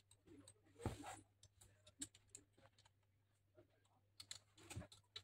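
Faint scattered clicks and taps of hands handling and fitting parts on a diamond core drill's side handle and body, with a louder knock about a second in and another near the end.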